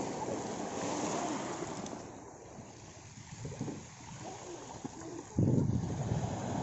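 Small waves washing onto a pebble beach, with wind on the microphone. The rush dips in the middle and turns suddenly louder about five and a half seconds in.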